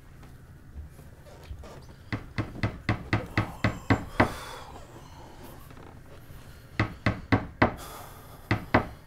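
Hammer blows on wood in quick runs of sharp strikes: about nine in a row, then four, then two, with a short scraping hiss between the runs.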